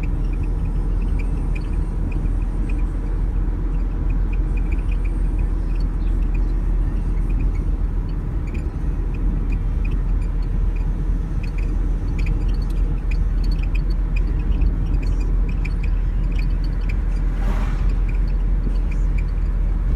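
Dodge Neon with a steady low road rumble, over which short high squeaks come and go from the right rear wheel area. The cause is unknown: the owner took the parts apart and found no fault.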